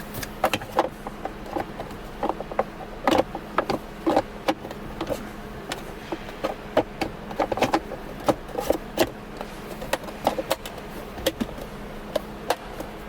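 Plastic trim piece of a Dodge Charger center console being handled and fitted into place: irregular clicks and knocks, a few to several a second, over a faint steady hum.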